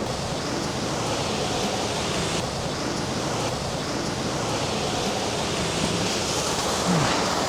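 Steady rushing of a waterfall and creek water, an even hiss spread across all pitches.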